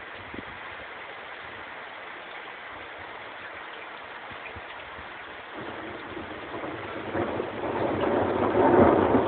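Steady hiss of rain, then about five and a half seconds in a rolling rumble of thunder builds up, loudest near the end.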